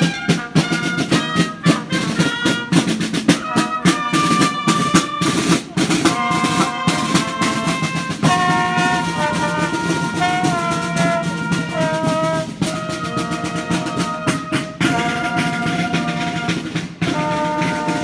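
A marching brass band playing in the street: brass horns, a trombone among them, play a tune in held notes over frequent drum beats. The music cuts off suddenly at the end.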